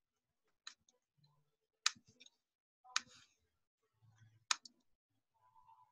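Four faint, sharp clicks about a second apart as a computer is operated, with faint handling noise between them.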